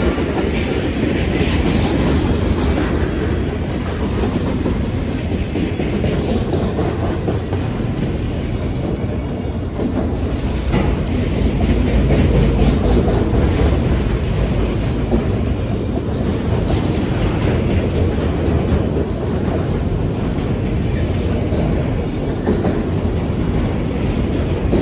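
Freight train cars rolling past at close range: steady noise of steel wheels on the rails, with repeated wheel clacks.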